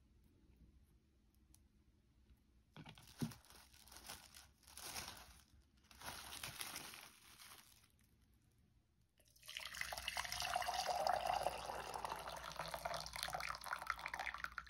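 Plastic cling film crinkling in several short bursts as it is stretched over a bowl of dough. About nine seconds in, water starts pouring steadily and keeps going for about five seconds.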